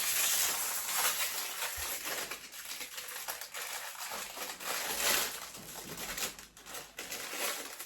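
Crinkling and rustling of a biscuit packet's wrapper being handled and opened, with small crackles throughout and a louder burst about five seconds in.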